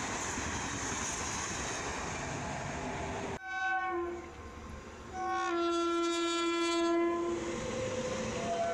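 Indian Railways electric train passing at speed with a steady rumble. After an abrupt cut, an approaching WAP-7 electric locomotive sounds its horn: a short blast, then a longer, louder blast of about two seconds.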